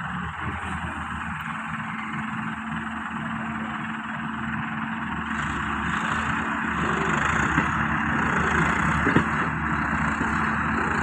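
Heavy diesel engine running steadily, getting somewhat louder about five seconds in.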